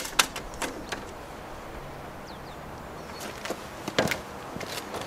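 Scattered sharp knocks and clicks from handling wooden tongue-and-groove cladding boards, a cluster just after the start and another about three to four seconds in.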